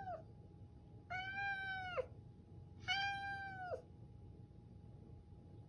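Domestic cat meowing in a hoarse voice: two drawn-out meows about a second long, each dropping in pitch at the end, after the tail of an earlier one. These are the insistent calls of a clingy, attention-seeking cat trying to get something across.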